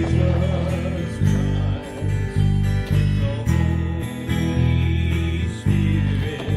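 Music with guitar over a steady low beat.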